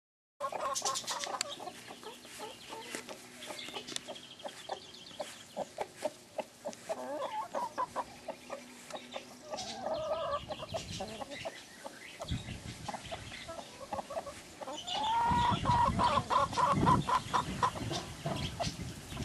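Broody hen clucking in a run of quick short calls, with a louder drawn-out call about three-quarters of the way through. A low rumbling noise comes in under the calls for the last few seconds.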